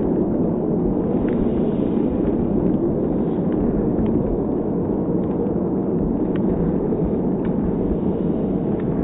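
Football stadium crowd noise, slowed to a quarter of normal speed by slow-motion playback, so the cheering is a deep, even rumble with no high tones. Faint short ticks are scattered through it.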